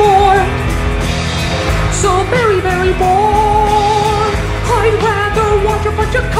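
A pop-rock song: a solo voice sings long held notes with a wavering vibrato, one sliding down about two and a half seconds in, over a full band backing with drums and cymbals.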